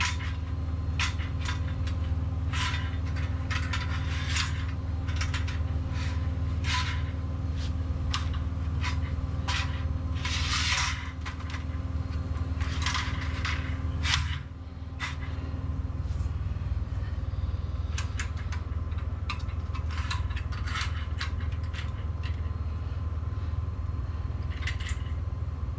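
Irregular metal clicks and scrapes of parts being handled as the belt tensioner is fitted to a garage door opener rail and its bolt turned, over a steady low hum. The clicking is busiest in the first two thirds and thins out after that.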